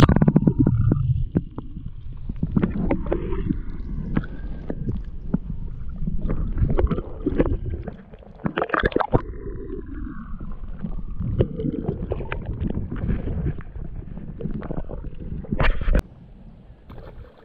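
Muffled water sloshing and gurgling heard with the microphone held underwater, with a low rumble and irregular knocks throughout. It cuts off sharply near the end.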